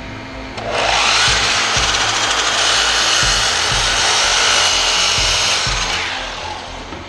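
Makita sliding compound miter saw spinning up with a rising whine, cutting through an alder board for about five seconds, then winding down.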